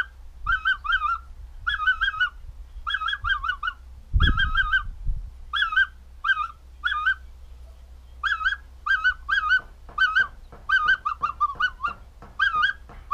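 Finger whistling imitating the calls of a greater white-fronted goose: short, wavering high notes given singly or in quick runs of two to four, repeated over and over.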